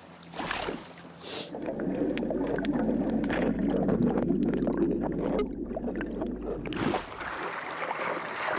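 Water heard first through an underwater camera: a muffled low rumble with a deep hum as a large groper takes bait hanging on a rope. About seven seconds in it changes abruptly to splashing and sloshing at the surface as the groper thrashes beside the boat's hull.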